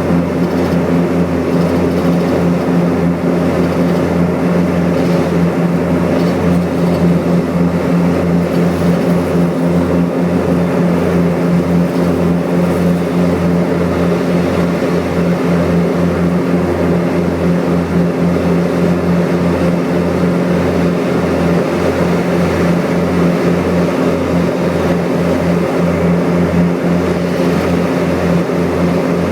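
Piston engines and propellers of a Grumman American GA-7 Cougar light twin running at steady take-off power: a constant drone with a strong low hum that does not change in pitch.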